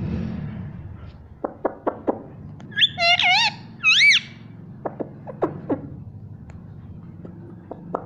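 Indian ringneck parakeet giving short high chirps that drop sharply in pitch, and a few high wavering squawk-like calls, the loudest about halfway through. A low bump of handling noise at the start.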